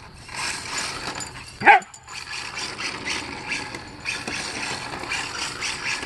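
Husky giving one short, sharp yip that rises steeply in pitch, a little under two seconds in, over uneven scuffling noise.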